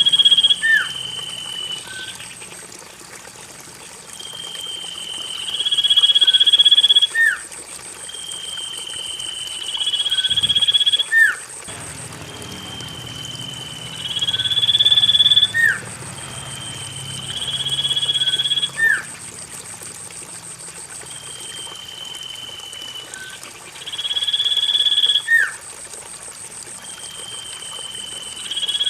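Common iora song: a long, slightly rising whistle with a lower note that ends in a quick upward flick, repeated about every four seconds, seven times.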